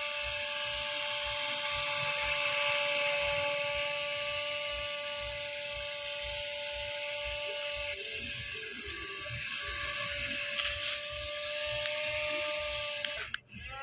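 Small electric motor of a homemade matchbox toy helicopter spinning its propeller at high speed: a steady high whine with a hiss of air. It cuts out abruptly near the end, then starts again.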